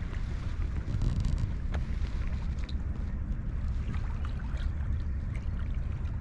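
Wind buffeting the microphone outdoors: a steady low rumble with faint scattered ticks.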